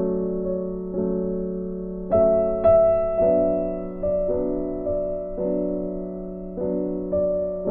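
Soft, slow piano background music, chords struck about once a second and left to ring out.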